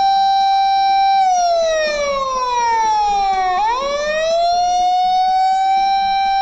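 Electronic siren wailing: a held tone that slides slowly down starting about a second in, then sweeps quickly back up about three and a half seconds in and holds again.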